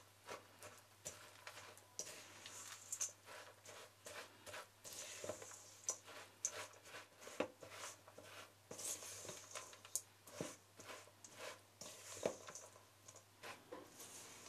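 Irregular light taps, clicks and rustles of hands working with kitchen utensils and ingredients.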